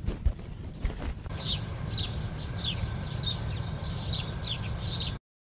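Two sharp clicks of a cigarette lighter being struck, then a bird singing a repeated run of short, falling chirps, about two a second, over a low steady outdoor rumble. The sound cuts off abruptly near the end.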